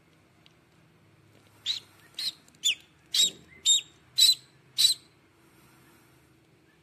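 Newly hatching duckling peeping from inside its cracked shell: seven short, high peeps, about two a second, starting about one and a half seconds in.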